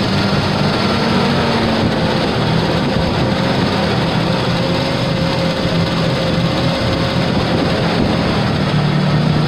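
1987 Ford Bronco II's 2.9-litre V6 running steadily at idle, just brought back to life after a no-spark no-start, and warming up while it burns off the raw gasoline that flooded it.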